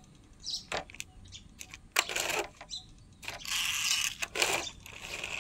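Plastic toy vehicles being handled and pushed on a hard floor: light plastic clicks and knocks with several short scraping rolls, the longest about halfway through.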